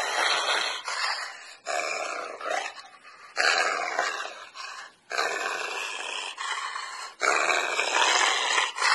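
Dutch working Malinois growling as it bites and tugs at a jacket on a snowman, in repeated bursts of a second or two with short breaks between.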